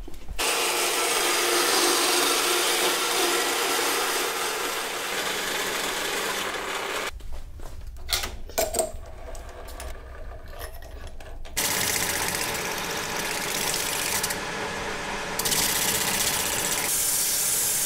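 Metal lathe running and turning a brass workpiece, the tool cutting with a steady grinding hiss. About seven seconds in, the cutting noise drops away for roughly four seconds, with a few clicks, and then starts again.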